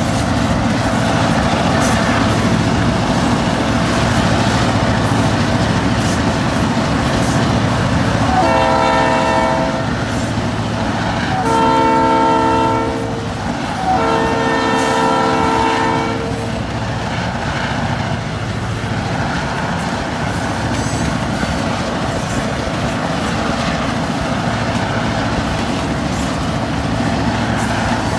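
Central Oregon and Pacific freight train running steadily, its locomotive's multi-chime air horn sounding three long blasts in the middle, the last one the longest.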